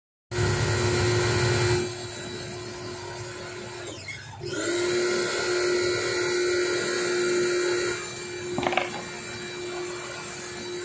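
Electric hair clipper running with a steady buzzing hum that varies in loudness and cuts out briefly about four seconds in before starting again, with a short rattle of clicks near the end.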